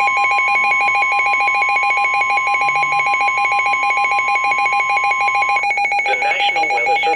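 NOAA Weather Radio's steady warning alarm tone, near 1050 Hz, sounding together with a weather radio receiver's own rapid pulsing alert beep, signalling a severe thunderstorm warning. The steady tone stops about five and a half seconds in, and the announcer's voice starts reading the warning under the continuing beeping.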